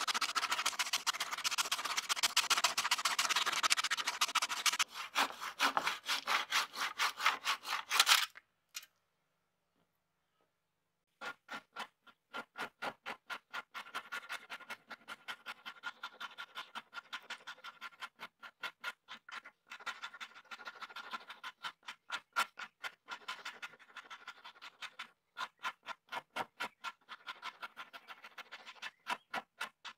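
Handsaw cutting through a wooden shovel handle in fast back-and-forth strokes, stopping about eight seconds in. After a few seconds of silence, a metal file rasps the cut end of the wooden handle in steady, evenly spaced strokes.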